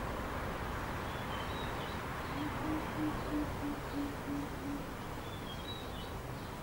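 Greater coucal (Centropus sinensis intermedius) calling a series of about eight deep, evenly spaced hoots, roughly three a second, starting a couple of seconds in.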